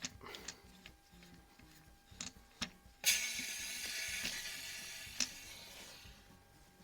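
A few small clicks as a CO2 cartridge is screwed into a Benjamin AS392 .22 CO2 rifle, then about three seconds in a sudden hiss of CO2 escaping that fades away over a few seconds. The gas is venting straight out the barrel instead of charging the gun, which the owner puts down to too little pressure to seat the rebuilt valve.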